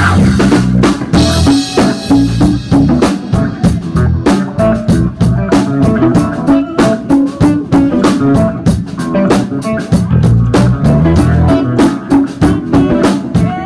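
Live electric guitar, electric bass and drum kit trio playing an instrumental. Busy drumming with many hits a second runs under a moving bass line and held guitar notes.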